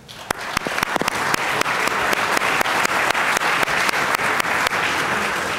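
Large room full of people applauding, many hands clapping together. The clapping starts at once and holds steady throughout.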